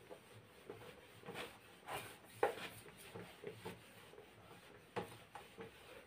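Faint, uneven rubbing strokes of a whiteboard being wiped clean with an eraser.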